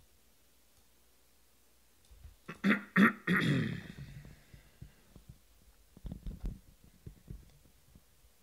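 A man's non-speech vocal sounds about two and a half seconds in: two short sharp bursts, then a longer falling one. A few soft thumps follow later.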